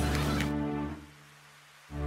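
Background music with long sustained low notes: one fades about a second in and another begins near the end. Busy-store noise underneath cuts off abruptly about half a second in.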